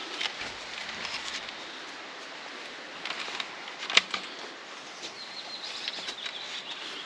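Faint rustling with scattered light clicks and knocks, and one sharp knock about four seconds in: someone moving about among old junk.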